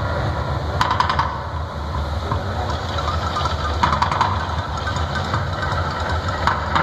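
The Mirage volcano attraction erupting: a deep, steady rumble with short bursts of crackle about a second in, around four seconds and near the end, as its gas flames flare.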